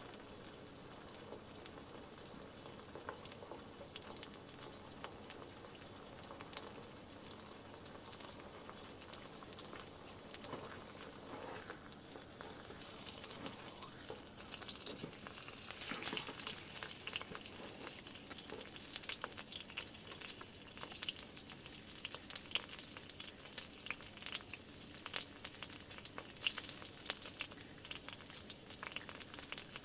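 Meat frying in a small pan on top of a wood-burning tent stove: a steady sizzle full of small crackling pops, growing louder about halfway through.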